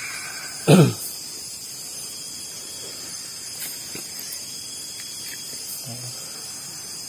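Crickets chirring steadily in the night, with one short human vocal sound, falling in pitch, about a second in.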